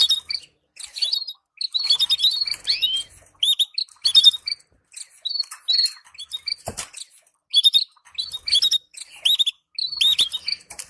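Canaries chirping in short, broken bursts of quick rising and falling call notes, the excited chatter played to stimulate breeding pairs. A single brief knock about two-thirds of the way through.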